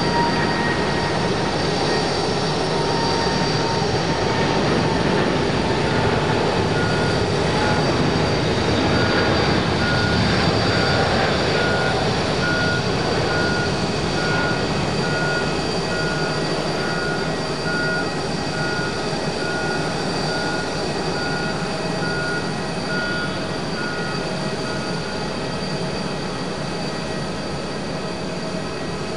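Twin jet engines of a Boeing 777-200ER airliner at takeoff thrust, a loud steady roar as it lifts off. The sound peaks about ten seconds in and then fades slowly as the jet climbs away.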